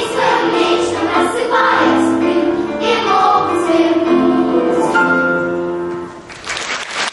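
Children's choir singing a song with accompaniment, the sung notes held and ending about six seconds in. A dense, irregular clattering noise follows near the end.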